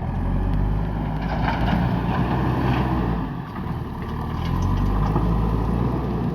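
JCB backhoe loader's diesel engine working under load, its level swelling, dipping about three seconds in and swelling again. Scattered knocks and rattles come between about one and a half and three seconds in.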